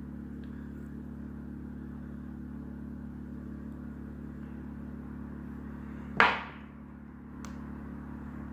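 A steady low hum throughout. About six seconds in, a single sharp metallic clink with a short ringing tail as a steel socket is set down, followed a second later by a faint click.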